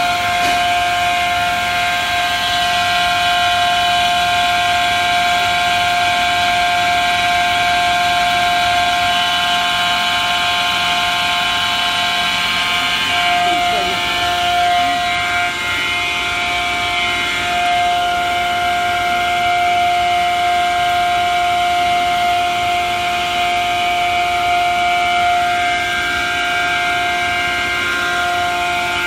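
Water transfer printing line running: a steady machine whine of several constant tones over a low hum, from the line's motors and blowers.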